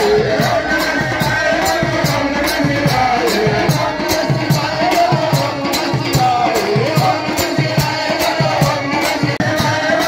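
Live devotional kirtan music: a voice singing a wavering melody over a hand drum and jingling percussion that keep a fast, steady beat of about three strokes a second.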